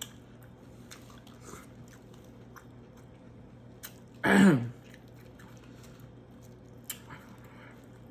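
Close-up chewing and biting of corn, soft wet mouth clicks and smacks. About halfway through comes one short, loud voiced sound from the eater, falling in pitch.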